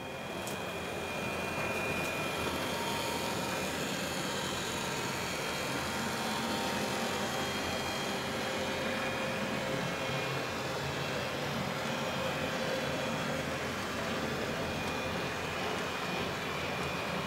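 H0-scale model train running steadily past: the model SBB Re 4/4 II locomotive's electric motor whirring and the box wagons' wheels rolling over the rails, a constant mechanical hum.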